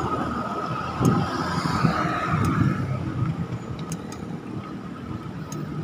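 Road traffic heard from a bicycle: cars and motorbikes going by over a steady rumble, swelling about a second in as a car passes close.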